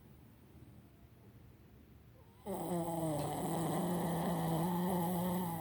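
Dog snoring: faint breathing at first, then about two and a half seconds in a loud, long snore held at one steady pitch, which cuts off suddenly.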